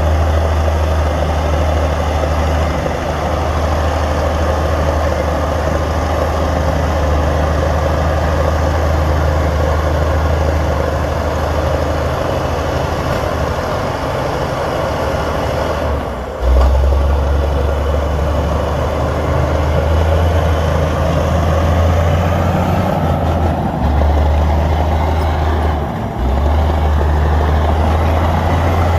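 Heavy diesel earthmoving machinery running steadily with a deep engine drone. The drone dips briefly twice in the second half.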